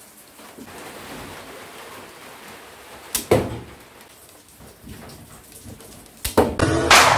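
Handmade wooden mini crossbow being handled and shot: a couple of sharp wooden clicks about three seconds in, then near the end a quick run of louder snaps as the string is released, the loudest with a short ringing tail.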